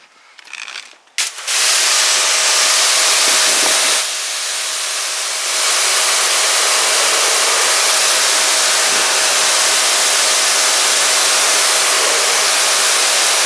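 Pressure washer spraying water onto a car's door panel: a loud steady hiss of spray that starts about a second and a half in, with a thin steady tone beneath it and a brief drop in level around four seconds in.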